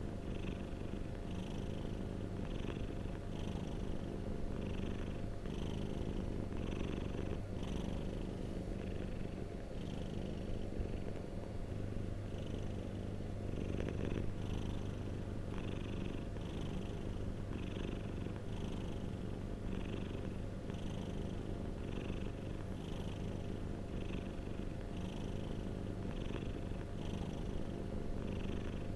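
Domestic cat purring steadily, in a rhythm of about one cycle a second.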